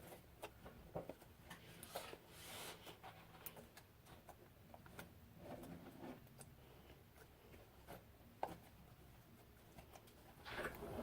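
Near silence in a small room, with faint scattered clicks and soft rustles of things being handled.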